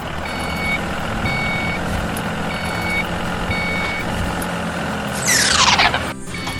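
Vehicle reversing alarm beeping, four half-second beeps about one a second, over a steady motor hum. Near the end a loud falling whoosh sweeps down in pitch.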